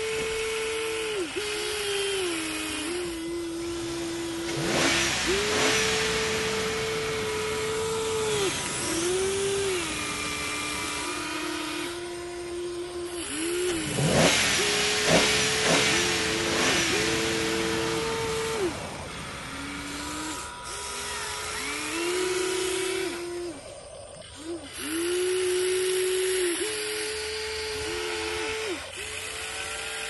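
Huina 1594 RC excavator's electric motors whining in repeated stop-start strokes as the boom, arm and bucket move, the whine stepping between a higher and a lower pitch. Bursts of scraping and pouring soil come about five seconds in and again around the middle.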